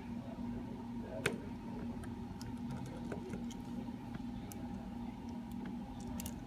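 Faint, scattered small clicks and ticks from a precision screwdriver and tiny screws being handled on the phone's inner parts, with one sharper click about a second in, over a steady low hum.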